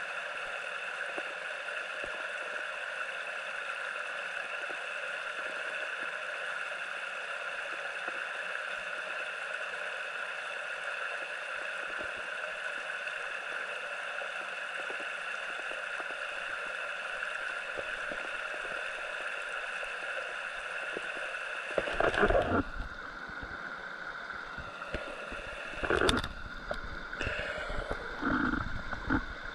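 Mountain stream rushing and gurgling steadily over rocks. Near the end there are a few short bouts of louder, muffled rumbling and knocking.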